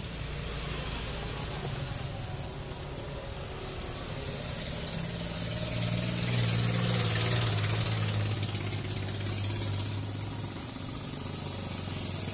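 Hot oil sizzling and bubbling in a large wok of frying chicken, as floured pieces are lowered in with tongs; the sizzle grows louder about halfway through. A steady low hum runs underneath.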